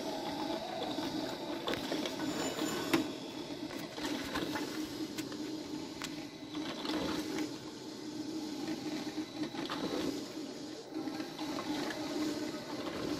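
DeLonghi drip filter coffee maker starting to brew, water heating and gurgling up through the machine with a steady hiss and many small irregular pops and clicks.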